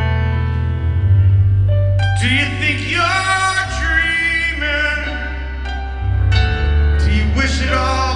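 Live rock band music heard through a concert recording: held chords over a heavy bass line, with a voice singing long, wavering notes about two seconds in and again near the end.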